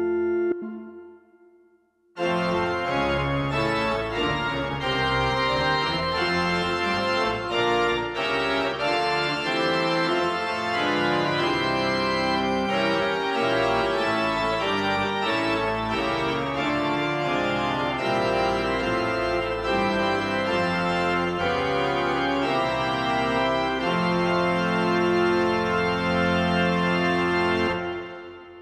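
Yamaha arranger keyboard playing a hymn tune in slow, held chords with an organ sound. A held chord dies away in the first two seconds. The playing starts again just after and closes on a long held chord that fades out near the end.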